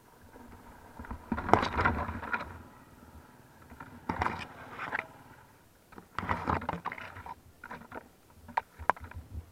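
Palm fronds brushing and scraping across a camera mounted on a dirt bike, in three rustling spells, with a couple of sharp knocks from the bike jolting over the rough trail near the end.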